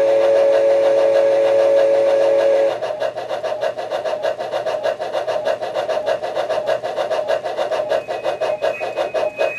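Model steam locomotive sound decoder (Soundtraxx Tsunami) sounding a chime steam whistle, held steady and cut off about two and a half seconds in, over a steady rhythmic chuff that carries on after the whistle stops.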